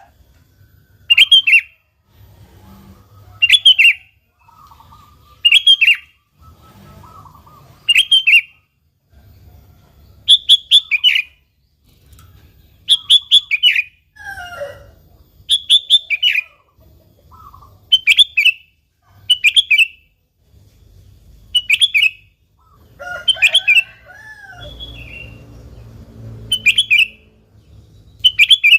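Sooty-headed bulbul calling: a short burst of bright chirping notes repeated about every two seconds, with a few fainter, lower calls in between.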